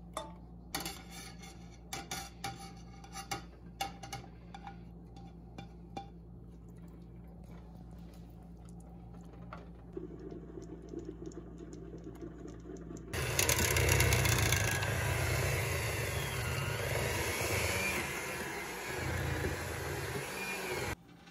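A metal spoon scraping thick condensed cream of mushroom soup out of a can into a stainless steel saucepan: a run of clinks and scrapes over the first several seconds. Later a loud, steady rushing noise with a low rumble takes over for about eight seconds and cuts off suddenly.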